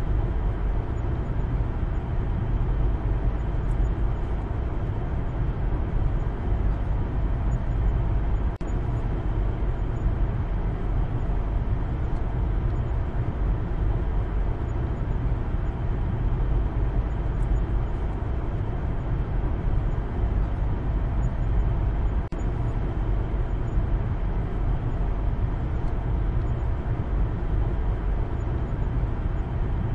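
Maruti Suzuki Baleno on the move, heard from inside the cabin: a steady low rumble of engine and road noise.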